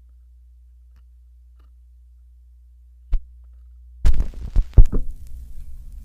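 Automatic record changer cycling on a 45 rpm single: a low steady hum, one sharp click about three seconds in, then from about four seconds a run of loud clunks and thumps as the changer's mechanism sets the tonearm down onto the record.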